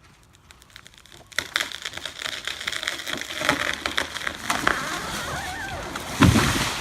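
A felled tree coming down: a growing run of wood cracking and splintering as the trunk gives way and the crown crashes through branches, ending in a heavy thud as it hits the ground about six seconds in.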